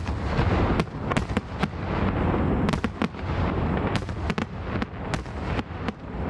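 Fireworks display with aerial shells bursting in quick succession: more than a dozen sharp bangs and crackles over a continuous low rumble.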